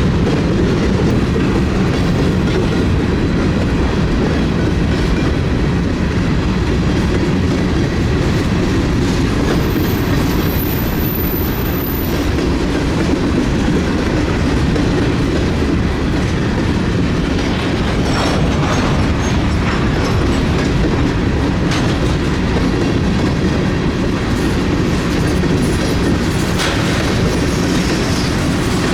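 Railroad cars rolling past close by: a steady heavy rumble with wheels clicking over rail joints, the clicks sharpest in the second half.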